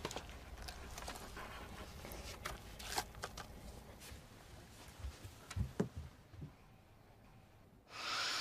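Quiet rustling with scattered light clicks and small knocks, as of objects being handled, then a louder breathy rush of noise near the end.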